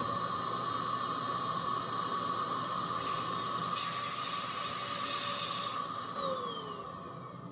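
Vacuum cleaner motor running steadily, used on the end of a rifle barrel to suck a fishing line through the bore; its whine falls as it winds down near the end.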